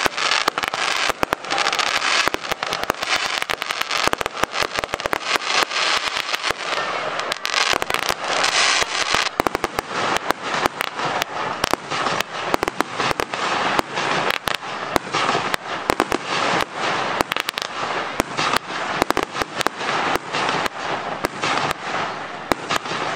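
Fireworks display: aerial shells and crackling stars going off in a rapid, irregular run of sharp bangs and crackles over a steady hiss, without a break.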